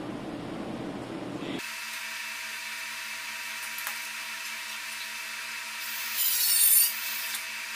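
A hiss of escaping pressurised gas, about a second long near the end, over a steady hum.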